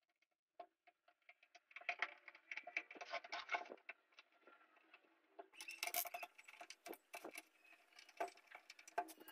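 Screwdriver driving screws into a DVD player's sheet-steel cover: faint, irregular metallic clicking and scraping as the screws turn and the case is handled.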